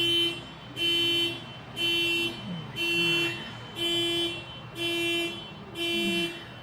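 Car alarm honking its horn in a steady rhythm, about one half-second honk each second. The resident blames the repeated triggering on an oversensitive alarm.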